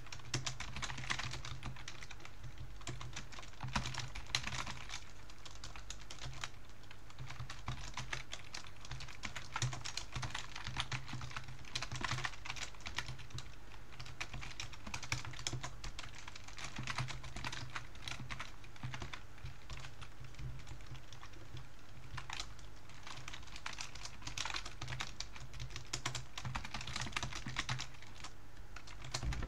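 Computer keyboard typing in quick, irregular bursts of keystrokes with short pauses between them, over a low steady hum.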